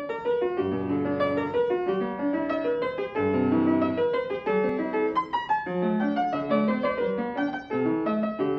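Viennese fortepiano being played: a quick passage of many short notes in both hands over lower bass notes, with the light, fast-decaying tone of leather-covered hammers on its strings.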